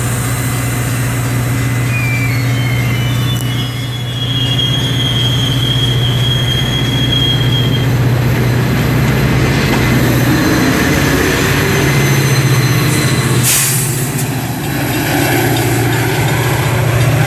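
Metra bilevel passenger cars rolling past at close range, wheels on rail with a steady low drone, and a thin high wheel squeal from about three seconds in that lasts a few seconds. Near the end the EMD F40PH diesel locomotive pushing at the rear of the train comes up alongside.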